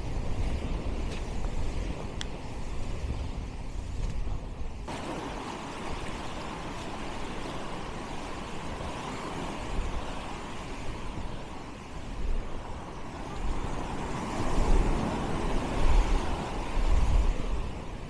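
Surf washing onto a sandy beach, with wind buffeting the microphone. The sound changes abruptly about five seconds in, and the wind gusts grow louder in the last few seconds.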